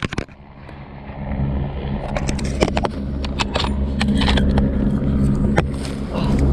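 A single rifle shot right at the start, fired at a tahr. A steady low hum runs underneath, and from about two seconds in there is a string of sharp clicks and rattles.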